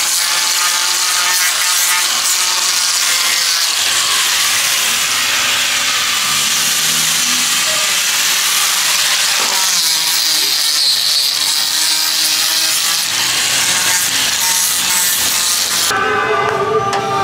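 Electric angle grinder with a sanding disc grinding down body filler on a body kit front bumper, a steady, loud abrasive hiss over the motor's whine that cuts off near the end.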